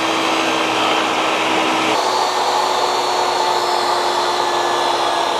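Table saw running steadily with a constant whine. About two seconds in, the sound shifts suddenly to a slightly different pitch.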